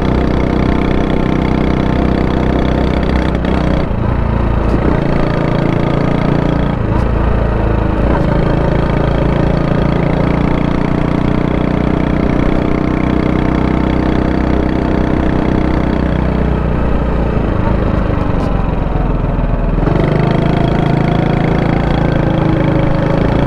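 Honda Super Cub 90's small single-cylinder four-stroke engine running steadily, its note changing several times: about four seconds in, again near seven seconds, and twice more in the last third.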